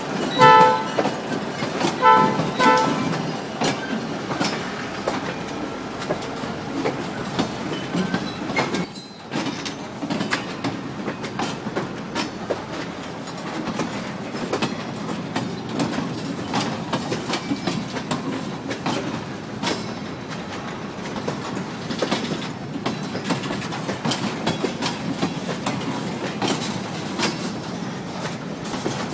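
Freight cars rolling slowly past, their wheels clicking over rail joints under a steady rumble. A locomotive horn sounds two short blasts in the first three seconds, and there is a single sharp bang about nine seconds in.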